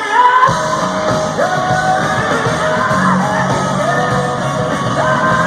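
Live hard rock band playing loudly in an arena, with singing over guitars; the drums and bass come in about half a second in.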